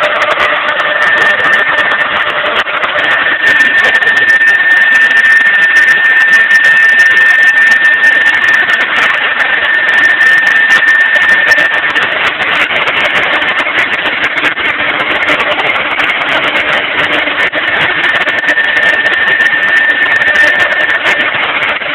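Mahecor KM 30 CNC router running: a steady high spindle whine over loud, continuous machining noise, the whine dropping out for a few seconds now and then.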